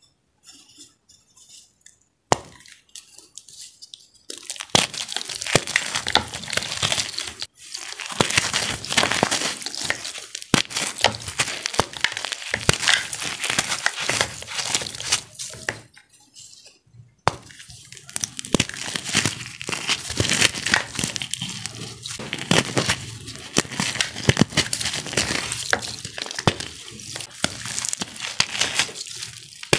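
Hands crushing and squeezing a cornstarch piece coated in blue iron oxide paste in water: wet crumbling and crunching with sharp crackles. It starts about two seconds in and goes on in handfuls with a few short pauses.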